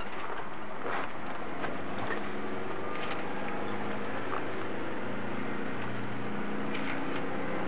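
Steady road and engine noise inside the cabin of a moving passenger van, with a low engine drone that grows clearer about halfway through and a few faint rattles.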